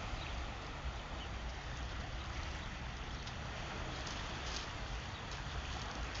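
Steady sea noise: the unbroken wash of waves, with a low rumble underneath.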